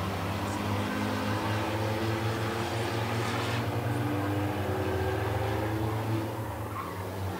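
Engines of a few minivans racing around the oval make a steady drone, with their pitch slowly rising and falling as the vans go through the corners and straights.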